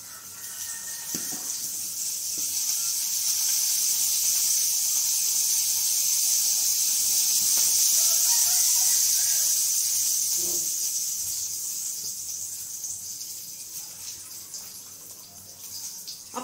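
Cumin seeds sizzling in hot oil in a frying pan: a steady high hiss that swells over the first few seconds, then dies down toward the end.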